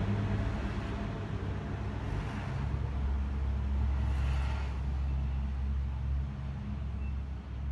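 Low, steady vehicle rumble, deepening from about three seconds in until near the end.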